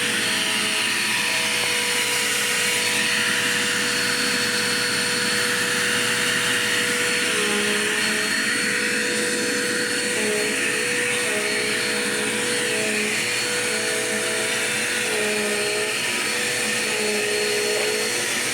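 Dirt Devil Quick Power vacuum cleaner running steadily on a bare floor, a continuous whooshing whine. From about halfway through, a second pitch shifts up and down as the vacuum is worked over the floor.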